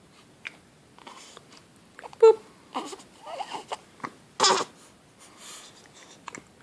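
A baby with the hiccups fussing with short, broken cries and whimpers, and a sudden sharp hiccup about two seconds in, the loudest sound. A second short, loud cry follows at about four and a half seconds.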